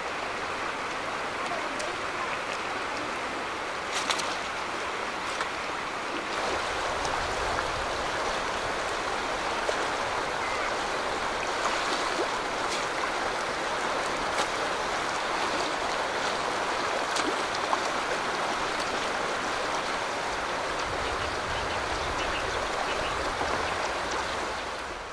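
Shallow river rapids rushing over stones, a steady even water noise, with a few faint clicks scattered through it.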